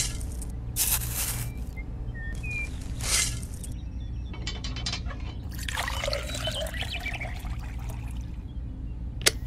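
Dry cement mix tipped from a tiny trowel into the drum of a miniature concrete mixer: three short pouring rushes in the first few seconds, then a longer trickling pour. A sharp click near the end.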